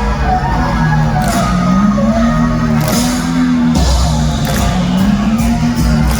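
Live rock music played loud by a band at a concert: a low melodic line stepping from note to note over drums, with no vocals in this stretch.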